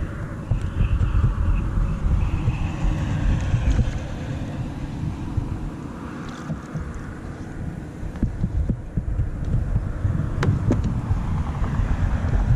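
Wind buffeting the microphone, a gusty low rumble, with a single sharp click about ten seconds in.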